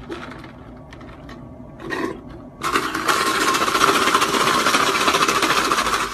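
A lidded drink cup shaken hard in the hand, rattling loudly and without a break from about two and a half seconds in.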